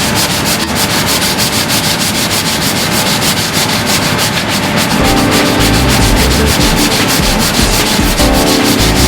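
80-grit sandpaper on a hand sanding block rubbing down cured body filler on a car's front guard, in quick, even back-and-forth strokes: the filler being shaped to the panel's contour.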